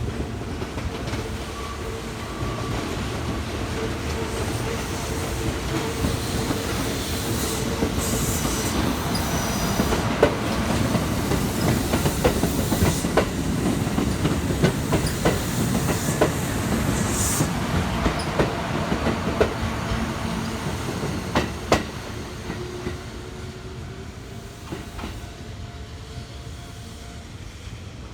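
Kintetsu electric train passing on the line, its rumble building and then easing off, with wheels clicking over the rail joints for a stretch in the middle.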